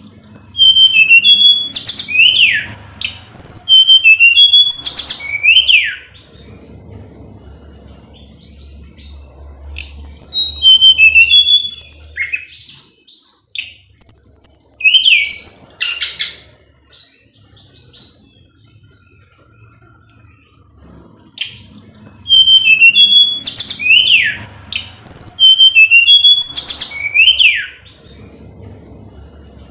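A tledekan gunung songbird singing in bursts of a few seconds each: fast, high chirps and whistles ending in falling slurs, with pauses between the bursts.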